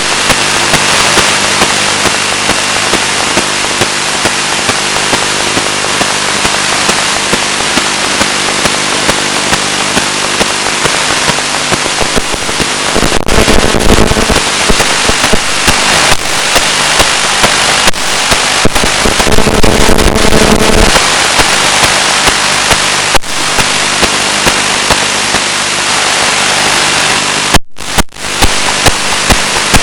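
Loud steady static hiss with a regular run of crackling clicks, from an analog FPV video downlink's audio channel. Twice, in the middle, a droning buzz rises over it: interference from a GSM mobile phone near the ground station. The audio briefly drops out near the end.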